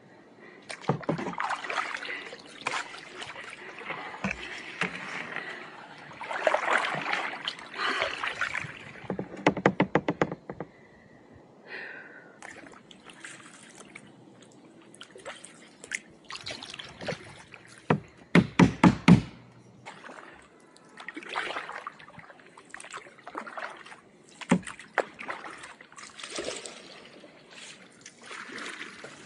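Kayak paddle strokes splashing and dripping water at an irregular pace. About two thirds of the way through comes a quick run of sharp knocks, the loudest sounds here.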